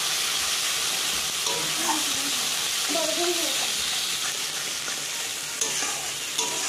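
Onion, cashew, garlic and ginger masala paste sizzling steadily in hot oil in a kadai, stirred with a metal spatula. A couple of light clicks from the spatula come near the end. This is the stage of frying the spice paste down.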